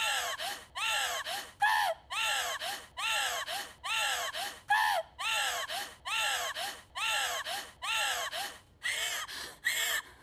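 An anime girl's voice crying out hysterically in a steady rhythm: a longer, high wavering cry followed by a short one, just over once a second.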